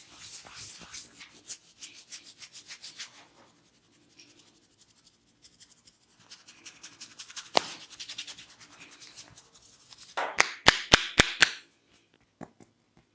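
Hands rubbing briskly over hair and scalp in rapid strokes during a head massage, softer midway with one sharp click. Near the end comes a quick run of five loud, sharp clicks, about four a second.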